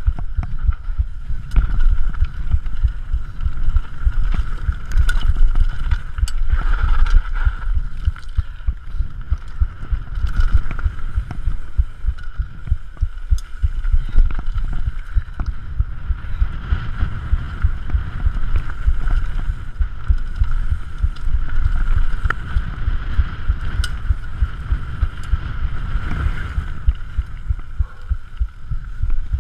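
Downhill mountain bike riding fast over a rocky, gravelly trail, heard close up from on the bike: continuous irregular thumping and rattling from the wheels, suspension and chain striking stones, with scattered sharp clicks, a steady high buzz underneath and wind rumble.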